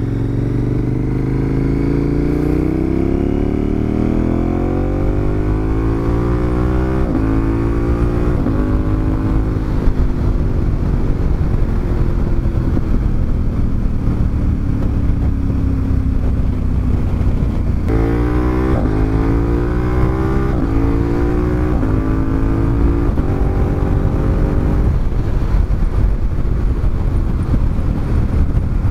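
KTM 1290 Super Adventure's V-twin engine accelerating hard through the gears with a Healtech quickshifter. The pitch climbs in each gear and drops sharply at each clutchless upshift. There are two runs of quick upshifts, the second starting about two-thirds of the way in, with steadier running between them.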